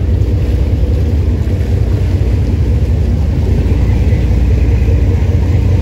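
Boat engine running with a steady, loud low rumble, as a motor yacht moves off across the harbour.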